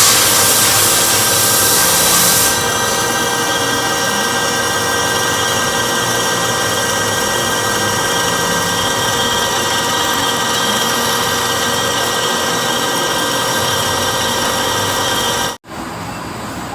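Metalworking machine tool running steadily, its motor and drive giving a whine of several steady tones, with a loud hiss over it for the first two seconds or so. The sound cuts out abruptly near the end and a quieter, different noise follows.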